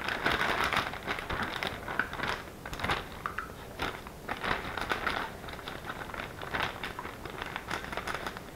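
Clear plastic zip-top bag crinkling and rustling irregularly as it is shaken and handled to empty salmon roe into a bowl of water.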